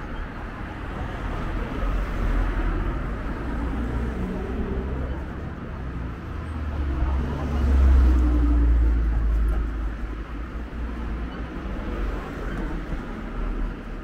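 Cars going by on a road: a low engine and tyre rumble that swells to its loudest a little past halfway, then eases.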